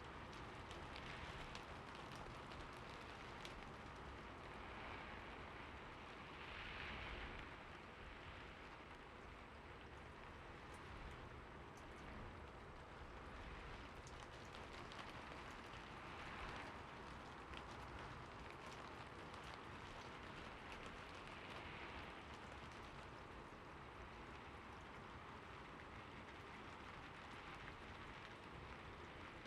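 Steady rain falling, with many small drop ticks and a few brief swells in intensity.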